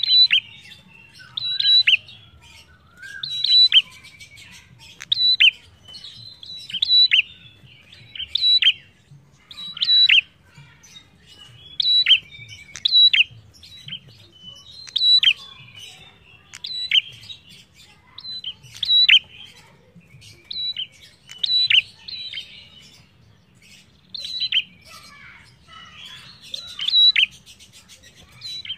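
A caged prenjak singing: loud, sharp calls repeated about once a second, each a high note that drops quickly in pitch, with softer chattering between them.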